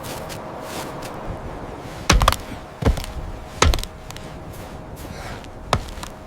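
Five sharp knocks at uneven intervals, the first two close together, over a steady background hiss.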